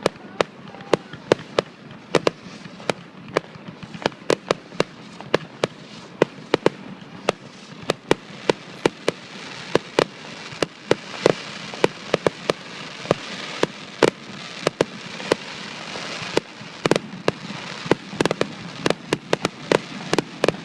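Fireworks display: a dense, irregular barrage of sharp bangs, several a second, over a crackling hiss that swells in the middle.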